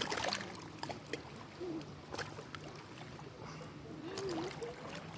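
Small waves lapping and splashing against the lakeshore in short, irregular slaps.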